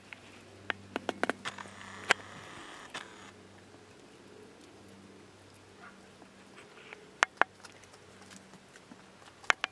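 Metal gate chain clinking and rattling in sharp, irregular clinks as a Boer wether goat mouths and chews on it: a quick cluster in the first few seconds, then a pair about seven seconds in and another near the end.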